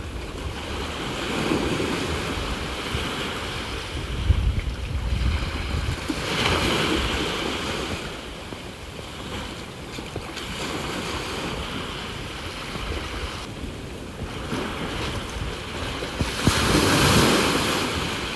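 Sea waves breaking and washing ashore, swelling and ebbing every few seconds, the loudest surge near the end, with wind rumbling on the microphone.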